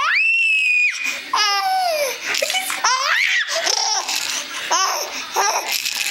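Baby laughing hard: a long high squeal at the start, then a string of short laughs, many falling in pitch.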